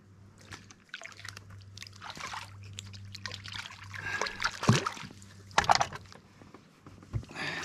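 River water sloshing and splashing as a payara held on a lip grip is lowered over a boat's side and released, with two sharper splashes about halfway through.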